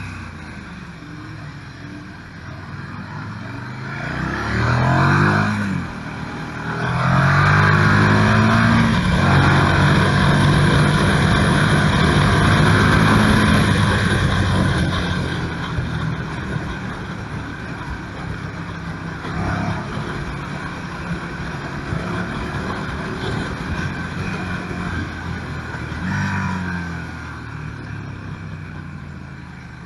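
KTM 1290 Super Duke R's 1301 cc V-twin engine under acceleration: it revs up about four seconds in and drops at a shift, then pulls hard at high revs for several seconds before easing off, with a short rise again near the end. Wind rushes over the microphone throughout.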